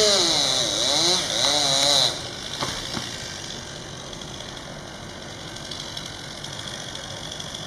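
Chainsaw cutting through a tree trunk, its engine pitch dipping and rising as it works under load, then stopping abruptly about two seconds in. Two short knocks follow, then only a faint outdoor background.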